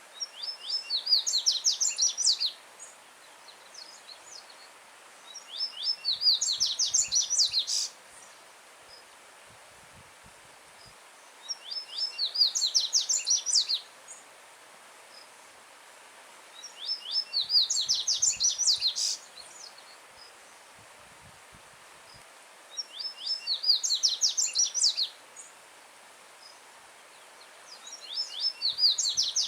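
A yellow-bellied seedeater (coleiro baiano) singing loudly, repeating a song phrase of about two seconds of rapid, high, down-slurred notes roughly every five to six seconds, six times. A soft steady rush of a stream running over stones lies beneath.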